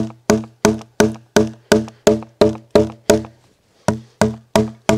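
Wooden mallet striking maple wedges driven into a log, a steady run of hollow, ringing wooden knocks about three a second, with a short pause about three seconds in before the blows resume. The wedges are forcing a lengthwise split to take the thickness off a canoe paddle blank.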